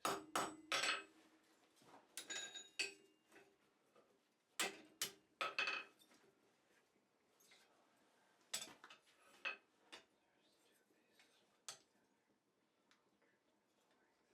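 Steel tools and pieces clinking and clanking as they are picked up, handled and set down, in irregular groups of sharp metallic knocks, some ringing briefly.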